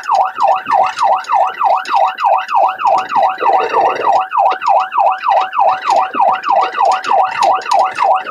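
Police car siren on the fast yelp setting, a rapid rising-and-falling wail repeating about three times a second, sounding continuously during the pursuit.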